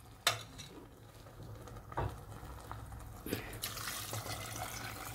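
Chicken broth poured from a pot into a steel cooking pot of sautéed vegetables. A few light knocks come first, then a steady splashing pour begins about three and a half seconds in.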